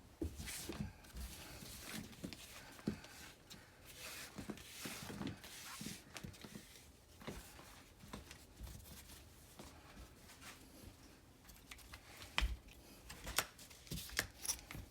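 Faint handling noises from a seat belt retractor and its webbing being worked by hand: scattered light clicks and knocks with soft rustling of the strap.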